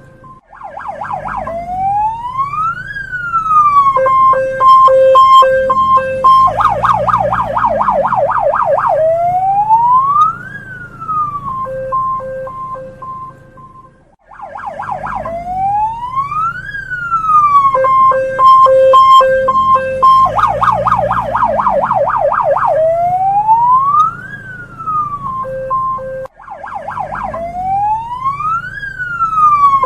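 Hong Kong police car electronic siren cycling through its tones: a fast yelp, then a slow wail rising and falling, then an alternating high-low two-tone. The sequence repeats about every 14 seconds, with a short break before each fast yelp.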